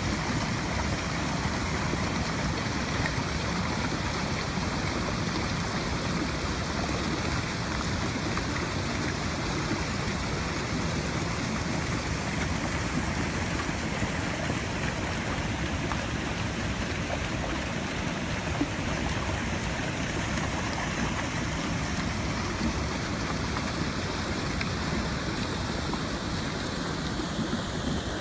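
Steady rushing water, an even unbroken noise without pauses.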